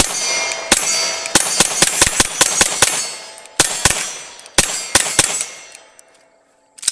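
9mm HK P30L pistol fitted with an HK Parts muzzle brake, fired in a rapid string of more than a dozen shots over about five seconds with two short pauses, each report ringing briefly. The pistol is fired until empty, the slide locking back. One more sharp knock comes near the end.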